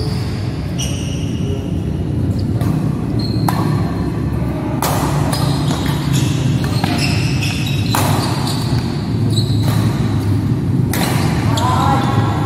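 Badminton rackets striking a shuttlecock in a fast doubles rally: sharp hits about once a second, with short high squeaks of shoes on the court floor between them, over a steady low rumble.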